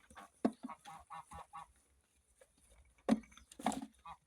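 Geese honking: a quick run of short calls, then a few louder calls about three seconds in. They are defending their ground and driving sheep off maize.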